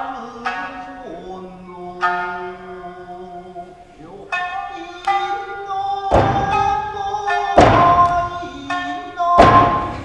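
Tokiwazu shamisen music, plucked notes ringing over a held line, broken in the second half by three heavy thuds about a second and a half apart, which are the loudest sounds.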